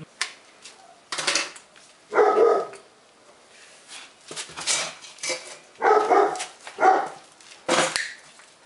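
A dog barking several times in short bursts, with scraping and clicking from pliers working at a wire in the wall in between.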